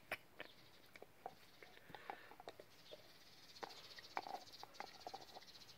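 Dog gnawing on an olive wood chew stick: faint, irregular clicks and crunches of teeth on wood.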